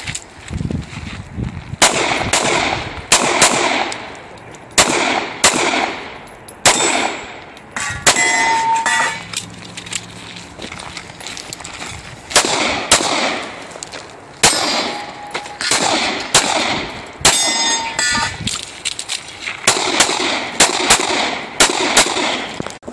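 Pistol shots fired in quick pairs during a practical-shooting stage, each crack followed by a short echo. Short pauses fall between the strings while the shooter moves and reloads, and a couple of brief ringing tones sound among the shots.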